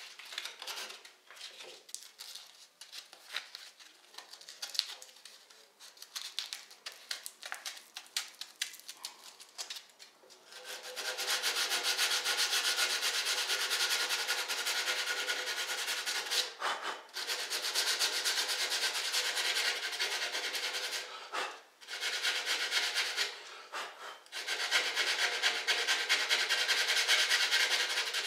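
Rolled sandpaper rubbed by hand over the coped end of primed MDF base trim, smoothing the coping-saw cut. Light, scattered scratchy strokes for about the first ten seconds, then steady rapid back-and-forth sanding broken by a few short pauses.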